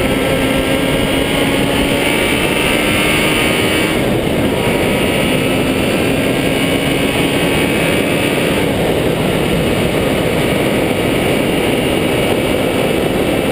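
A vehicle driving on a loose gravel track: a steady engine note under a dense rush of tyre and wind noise. The engine note drops out briefly about 4 seconds in and again near 9 seconds.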